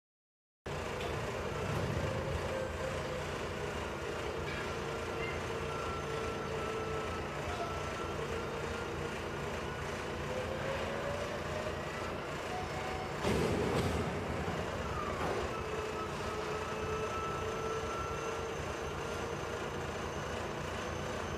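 Tata tipper truck's diesel engine running steadily, with a whine that slowly wavers in pitch as the body's top cover is raised and lowered. A short, louder rush of noise comes about thirteen seconds in.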